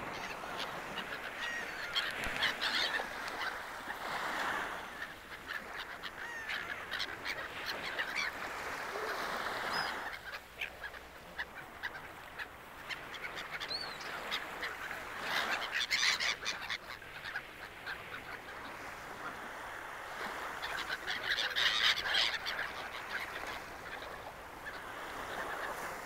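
A flock of gulls calling over gently breaking surf, many short overlapping cries that thicken into busier bursts several times as the birds crowd in to be fed.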